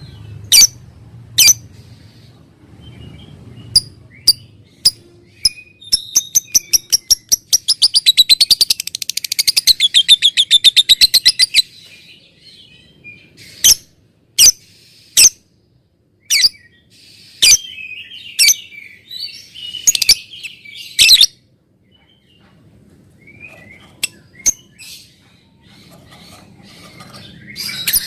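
Lovebird calling: sharp, high single chirps, then about six seconds in a run of rapid clicks that speeds up into a long chattering trill of about five seconds. This is the 'ngekek' song that keepers use to lure other lovebirds into singing. Spaced chirps and short bursts of chatter follow.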